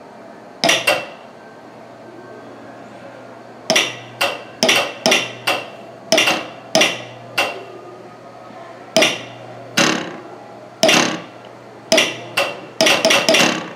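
Metal struck again and again, about twenty sharp ringing hits at uneven spacing, some in quick runs near the end, over a faint steady low hum.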